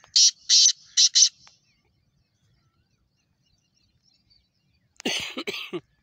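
Black francolin calling: a quick run of four or five harsh, grating notes in the first second and a half, then a shorter rough burst about five seconds in.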